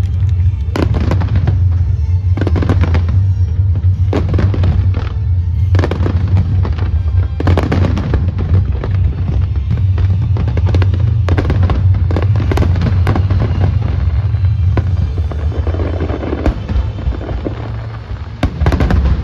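Fireworks display: aerial shells bursting one after another, sharp bangs every second or so over a constant low rumble.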